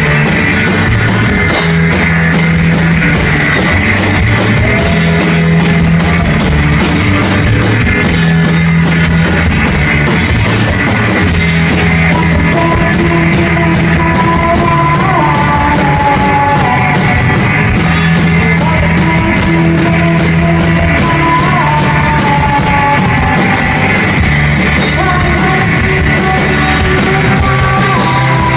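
Live rock band playing loudly: drum kit, electric guitars and bass, with singing over it from about halfway.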